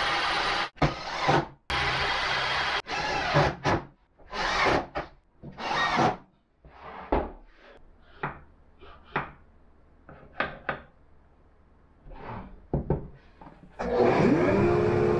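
A cordless drill driving screws into plywood in several short runs, followed by short knocks and clicks as wooden parts and a metal square are handled. Near the end a table-mounted router starts up, its whine rising and then holding steady.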